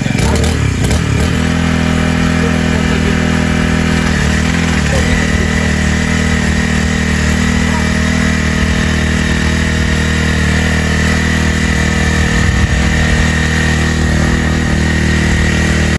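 Kubota TMS200 mini cultivator's small petrol engine running steadily under load as its tines till soil, its pitch shifting briefly in the first second and again around four seconds in. A thin high whine joins about five seconds in.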